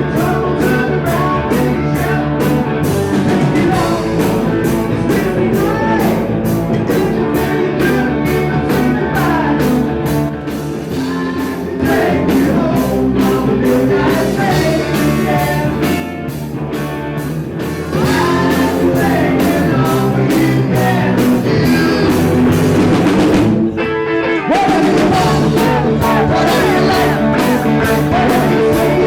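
Live rock band playing: drum kit with a steady cymbal beat, electric guitar, and singing. The band stops for about a second near the end, then comes back in.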